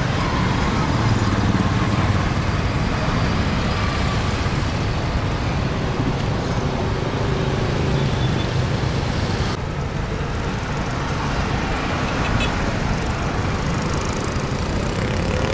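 Street traffic: small motorcycle and motorcycle-tricycle engines running and passing, over steady road noise.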